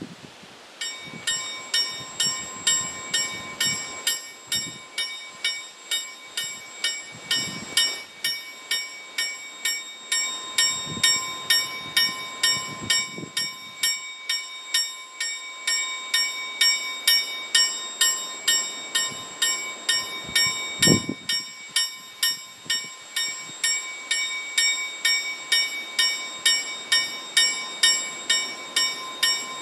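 Railway level crossing warning bell starting about a second in and ringing steadily at about two strikes a second. The crossing is active, warning that a train is approaching.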